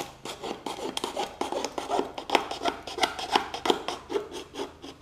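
Knife cutting and scraping a small stick in quick, irregular strokes drawn toward the body, several a second.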